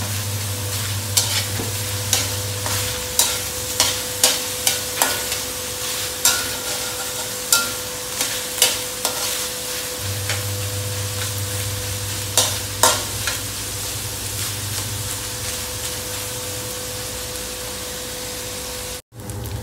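Diced pork sizzling in an aluminium wok as it is browned, with a metal spatula stirring and scraping it and clacking against the pan many times over the first dozen seconds, then fewer strokes. A steady low hum runs underneath.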